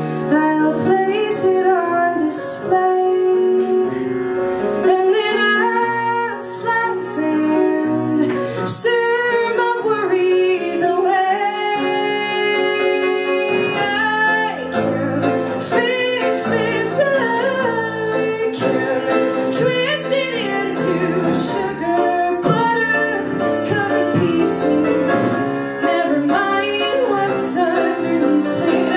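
A woman singing a musical-theatre ballad into a microphone with grand piano accompaniment, holding one long note about twelve seconds in.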